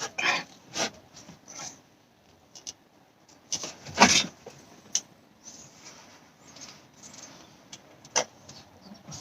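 A new oil filter element being handled and fitted into its plastic housing: scattered light clicks, scrapes and rustles, with a louder scrape about four seconds in and a sharp click near the end.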